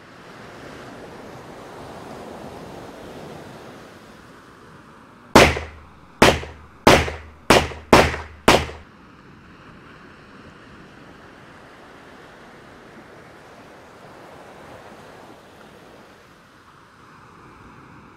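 Steady sea and wind wash, broken a little after five seconds by six sharp gunshots fired in quick succession, about half a second apart, each with a short fading tail.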